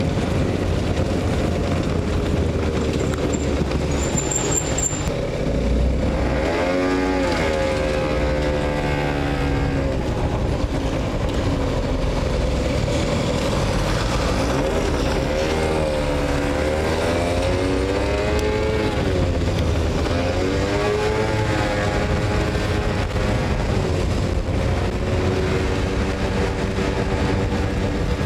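Moped engine under way, its pitch rising and falling as it speeds up and slows, most clearly about 6, 16 and 20 seconds in, over steady wind and road noise.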